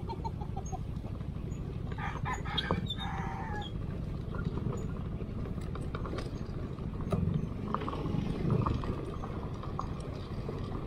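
A rooster crows once about two seconds in, lasting about a second and a half, over a steady low rumble.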